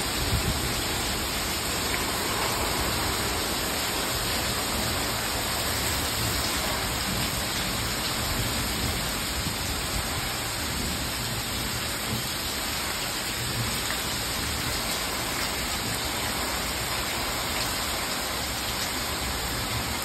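Heavy rain pouring steadily onto a paved patio and swimming pool, with strong storm wind gusting as a low, uneven rumble underneath.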